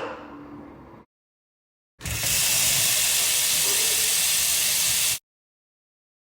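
A loud, steady hiss lasting about three seconds that cuts in and out abruptly, after the fading tail of an earlier sound.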